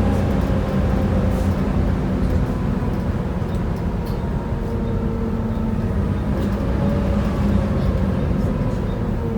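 Volvo B7TL double-decker bus running, its six-cylinder diesel and hydraulic cooling fan giving a steady roar with a hoovering sound. A few whining tones rise and fall in pitch over the drone.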